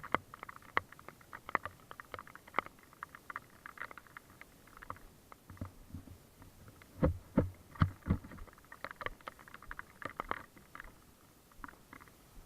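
Footsteps crunching irregularly on a dry trail, with a few heavier low thuds about seven and eight seconds in.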